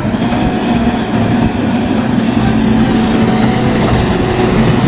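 Komatsu wheel loader's diesel engine running steadily under load, a low drone over a rushing noise, as its V-shaped snow plow pushes through deep snow.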